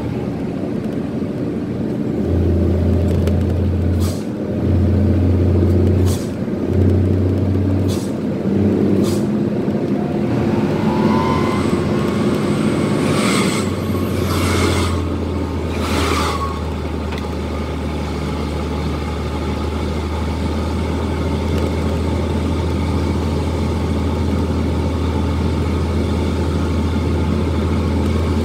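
Twin-turbo diesel truck engine running under way, heard from inside the cab: its low drone breaks off briefly several times in the first ten seconds, then settles into a steady drone. Several short hissing bursts come about thirteen to sixteen seconds in.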